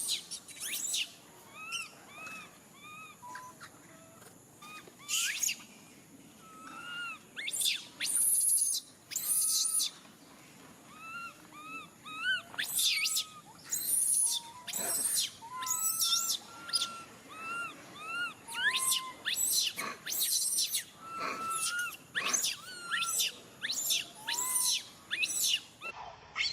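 Baby monkey crying repeatedly: short arching whimpers one after another, mixed with sharper, shrill high-pitched squeals. These are the distress calls of an infant separated from its mother.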